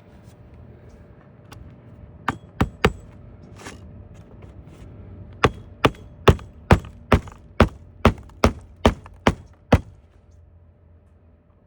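Hammer striking nails into cedar shakes: a few blows, a short pause, then a steady run of about a dozen blows at roughly two a second.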